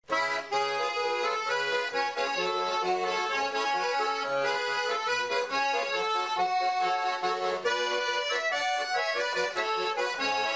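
Instrumental music: a tune of held notes over a changing bass line.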